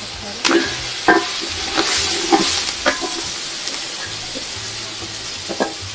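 Vegetables stir-frying in hot oil: a steady sizzle, with a utensil scraping and clinking against the pan about half a dozen times as they are stirred.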